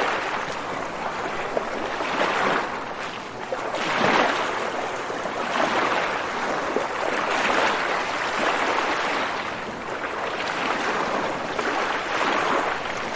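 Waves washing in, a continuous rush of water that swells and ebbs every couple of seconds.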